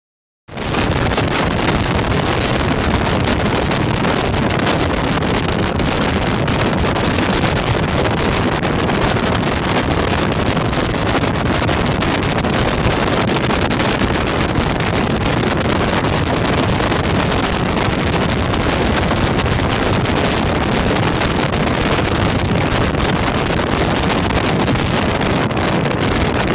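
Speedboat under way: wind buffeting the microphone over a steady rush of engine and water noise, coming in abruptly about half a second in.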